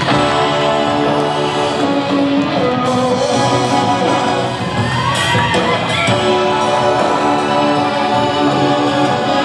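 Recorded rock music with guitar playing over the venue's PA speakers.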